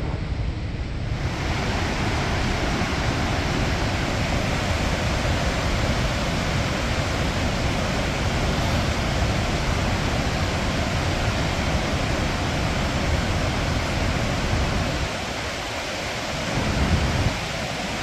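Steady rushing roar of Victoria Falls' waterfall and the Zambezi rapids in the gorge below, with wind rumbling on the microphone. The full rush comes in about a second in.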